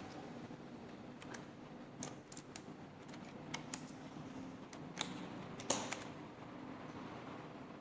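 Scattered small clicks and taps of an HP Compaq 6520s laptop's plastic and metal parts being handled, a dozen or so irregular hits with the loudest between five and six seconds in, over a faint steady hum.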